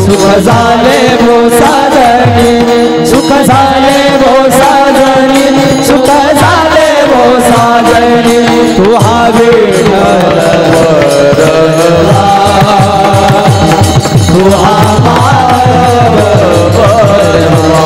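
Varkari devotional kirtan music: voices singing a chant with taal hand cymbals struck in rhythm, a pakhawaj drum and a steady held drone underneath.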